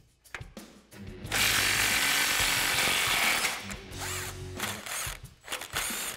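Cordless impact wrench running on a 19 mm U-bolt nut on a truck's rear leaf-spring plate, breaking it loose. One long burst of about two seconds, then several short bursts as the nut is spun off.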